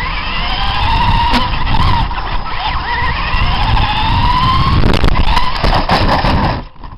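Radio-controlled monster trucks' motors whining as they race, the pitch rising and falling with the throttle, over tyre and drivetrain noise. The sound cuts off suddenly near the end.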